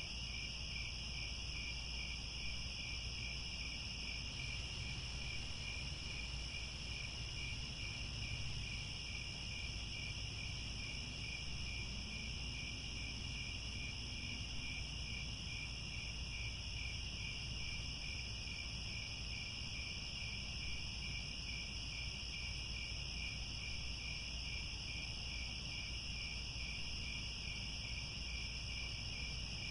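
A dense, steady chorus of crickets chirping, with one part pulsing at an even rhythm, over a faint low hum.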